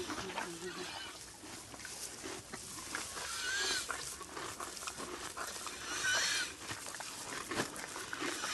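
A pony with equine asthma (heaves) breathing, two breaths about two and a half seconds apart. Each breath is a rush of air with a short whistling wheeze in it, the sign of narrowed airways.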